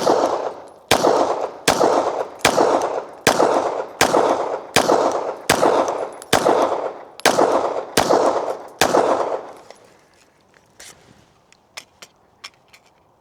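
Twelve 9mm pistol shots from a Glock 17, fired one at a time about 0.8 s apart, each with a short echoing tail. After the last shot there are a few faint small clicks.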